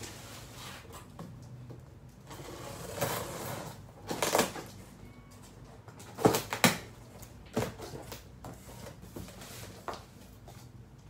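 Cardboard shipping boxes being handled and shifted: a stretch of rustling packaging, then several sharp knocks as boxes are set down, the loudest two close together just past the middle.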